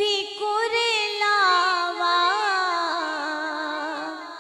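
A woman singing a Punjabi devotional naat: a long held phrase without words, with quick ornamental turns, sliding down in pitch and fading near the end.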